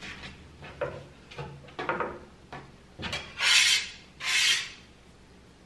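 Hands patting and rounding a ball of soft dough on a wooden table, with a few soft taps, then a metal bench scraper dragged twice across the end-grain wooden butcher-block top to clear stuck dough and flour. The two scrapes are the loudest sounds, each about half a second long.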